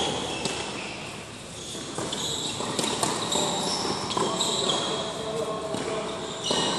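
Tennis balls struck by rackets and bouncing on an indoor hard court: a few sharp hits a second or more apart. Short, high-pitched sneaker squeaks come from the players moving on the court surface.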